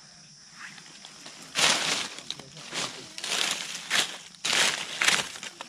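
Dry leaf litter crunching and rustling in several irregular bursts, starting about a second and a half in.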